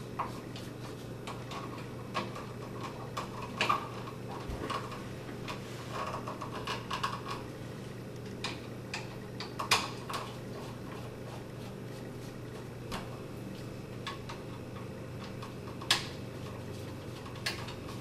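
Scattered light metallic clicks and scrapes of a screwdriver on an old electrical outlet's terminal screws and of its wires being taken off, with sharper clicks about ten and sixteen seconds in, over a faint steady low hum.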